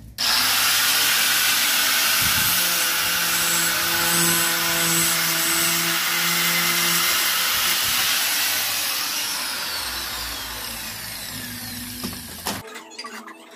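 Handheld angle grinder with a cutting disc running and cutting through a fluted wall panel. It starts abruptly, runs steadily, eases off slightly and cuts out about a second before the end.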